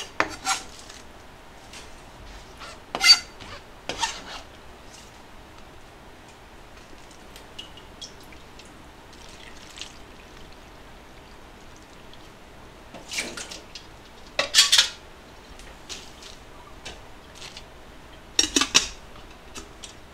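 Kitchen clatter while preparing napa cabbage: a knife on a plastic cutting board, leaves going into a stainless steel pot, and the pot's lid set on near the end. There are several sharp clanks, the loudest about 3 s in and around 14–15 s in.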